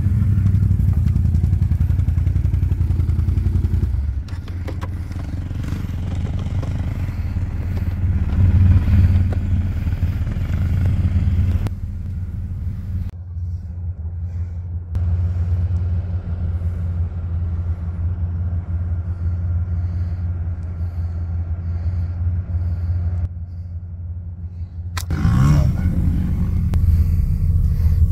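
Off-road vehicle engine running at fairly steady revs, the sound changing abruptly several times.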